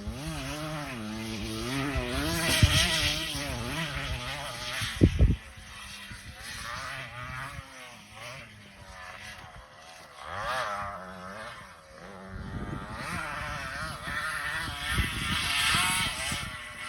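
Pit bike engine revving up and down while riding a dirt track, its pitch rising and falling with each throttle change and fading as it moves away and comes back. There is a short, sharp knock about five seconds in.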